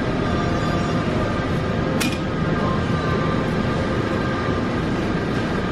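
Steady supermarket background noise: a constant rumbling hiss with faint steady hums, and one short sharp click about two seconds in.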